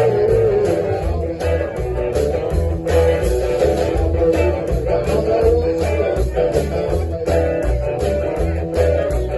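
Blues band playing live: guitar lines over bass and drums keeping a steady beat, with no singing.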